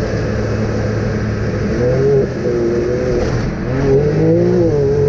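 Off-road vehicle engine running under load: steady for the first couple of seconds, then its pitch dips and rises several times as the throttle is worked.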